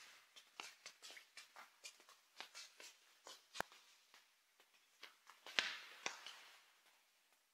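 Faint light footsteps of a child on a wooden parquet floor, an irregular patter of soft taps. A sharp click comes about halfway through, and a louder scuff about three-quarters of the way in.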